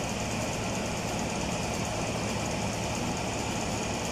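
A steady, unchanging low mechanical hum with a hiss over it: machinery running in the background, with no tool strikes or clicks.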